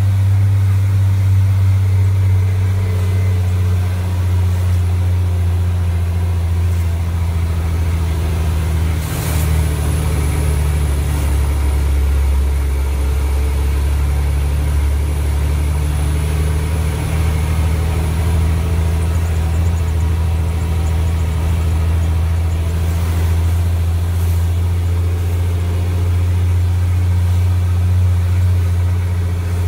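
Mack DM water truck's diesel engine running steadily under way, heard from inside the cab as a deep drone. Its note shifts about nine seconds in, with a brief sharp knock at that moment, and shifts again a little later.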